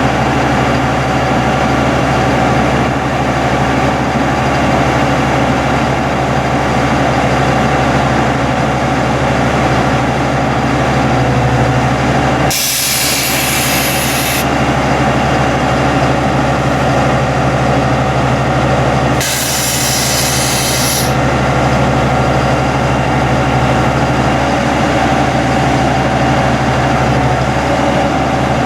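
Sterling LT7500 hydro-excavator's diesel engine running steadily at raised throttle, around 1,800 to 2,000 rpm, to drive the jet vac system at maximum pressure. Twice, a little under halfway through and again about two-thirds through, a loud hiss lasting about two seconds cuts in.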